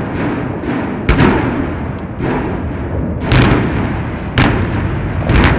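Explosive demolition charges detonating in sequence on a coal-fired power plant's boiler structure: a sharp blast about a second in, more past three and four seconds, and two close together near the end, with a continuous rumble between them.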